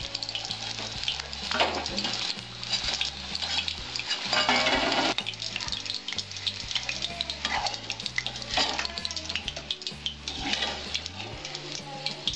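Chicken pakoras sizzling and crackling in hot refined oil in a metal kadai, with clinks and scrapes of a slotted metal spoon as the fried pieces are lifted out. The frying grows louder for about a second around the middle.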